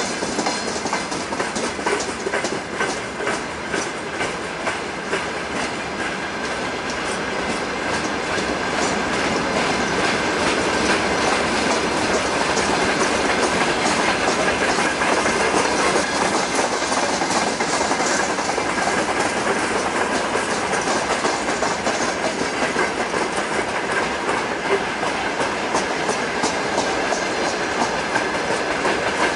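Broad-gauge freight train's open wagons rolling steadily past, their steel wheels clattering on the track, growing a little louder about ten seconds in.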